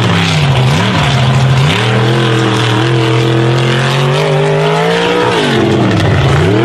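Lifted mud truck's engine revving hard under throttle: the revs dip and climb twice in the first couple of seconds, hold high and slowly rising for about three seconds, then drop and climb again near the end.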